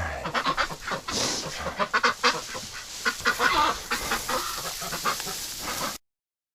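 Domestic geese honking and ducks quacking, a flock calling over one another in quick irregular calls; it cuts off abruptly near the end.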